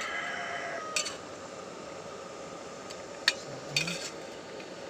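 Metal spatula scraping and clinking against a stainless steel pan as fried eel pieces are pushed off it into a wok, with a few sharp clinks: about a second in, then around three seconds and near four seconds.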